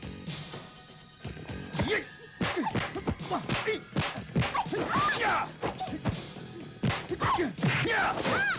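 Martial-arts film fight sound effects: a rapid run of punch and kick impacts over music, starting about two seconds in.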